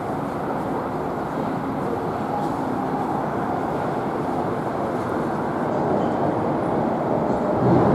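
NJ Transit train approaching from a distance: a steady rail rumble that grows louder over the last couple of seconds.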